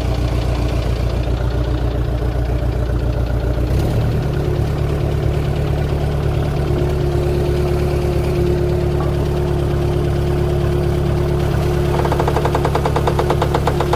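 Waldon 6000 articulated loader's engine running warmed up, its speed stepping up about four seconds in. A steady whine joins from about seven seconds in, and a fast, even rattle comes in near the end.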